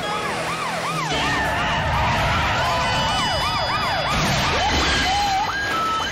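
Several emergency-vehicle sirens wailing at once, each rising and falling in quick half-second sweeps that overlap one another, with a low rumble underneath from about a second in. Near the end a siren winds up in a slower rising sweep.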